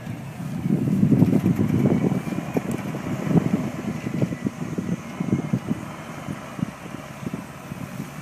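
Deutz-Fahr TTV 610 tractor running while ploughing, its engine partly buried under irregular gusts of wind buffeting the microphone.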